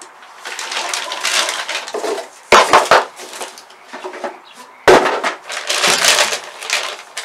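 Plastic bag crinkling and rustling as it is handled and pulled off a boxed aluminum oil pan, along with cardboard box handling. Sharp thumps about two and a half seconds in and again near five seconds are the loudest sounds.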